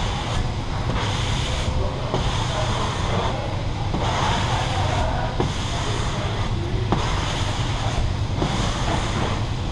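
Repeated swishing strokes of a squeegee across vinyl wrap film, coming roughly once a second, over a steady low rumble.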